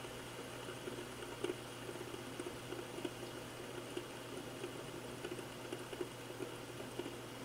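Green plastic fidget spinner spinning freely on a wooden tabletop, running quietly: a soft whir with faint, irregular light ticks.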